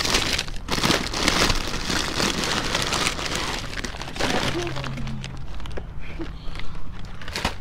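Rustling and crinkling of bags and packaging being rummaged through and handled, with scattered knocks, thinning out about halfway through.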